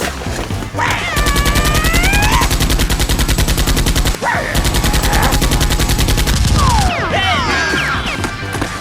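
Rapid automatic gunfire, a machine-gun sound effect, in two long bursts with a brief break about four seconds in, with high gliding cries over the start and the end.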